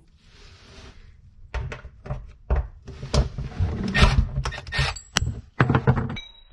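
Irregular clicks, knocks and metallic clatter of a cordless drill/driver and the sheet-metal mounting clips against the underside of a stainless steel kitchen sink as the clips are taken out. The knocks come mostly after the first second and are densest about four seconds in.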